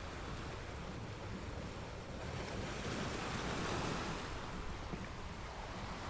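Rough sea surf washing in against a rocky cliff, a steady rushing that swells to its loudest about halfway through as a wave breaks, then eases off.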